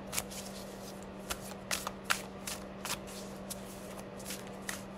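A deck of healing cards being shuffled by hand: a string of short, irregular flicks and snaps, a few a second, as the cards slide over each other. A steady low hum runs underneath.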